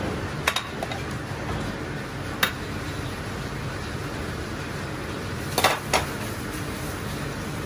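Large stockpot of chicken feet and whole chickens at a rolling boil, a steady rushing bubbling noise. A metal ladle clinks against the pot about half a second in, once near the middle, and twice in quick succession near the end.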